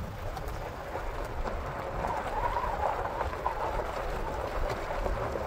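A 4x4 driving downhill on a gravel road, heard through an open window: tyres crunching over loose stones with scattered small ticks, over a low engine rumble.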